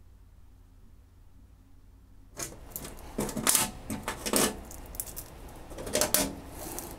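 Low hum for about two seconds, then irregular metallic clinks and rattles as loose screws are picked out by hand from an aluminium aircraft floor panel.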